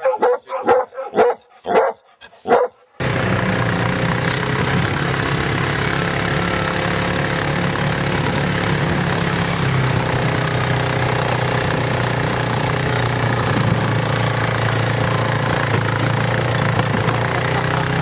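An all-terrain vehicle's engine running steadily while the quad is driven along a rough dirt track, with rumble and wind noise. It starts suddenly about three seconds in.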